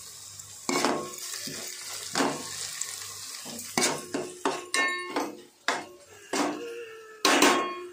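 Steel ladle knocking and scraping against a metal pan while stirring onions and curry leaves frying in oil: irregular clanks with a brief metallic ring, the loudest near the end, over a faint sizzle.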